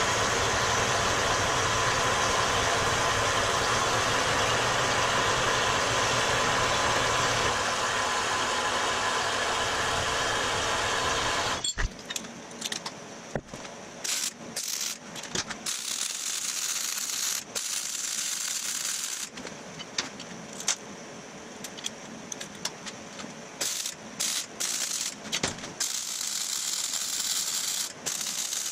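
Horizontal metal-cutting bandsaw running steadily through steel square tubing, with a steady ringing tone, stopping suddenly about twelve seconds in. After that, a MIG welder crackles in short tack-weld bursts and a few longer steady beads as the tubing is joined.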